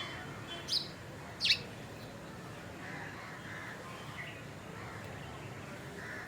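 Wild birds calling: two sharp, high calls sweeping downward in pitch about a second in, then fainter calls over a steady background hiss.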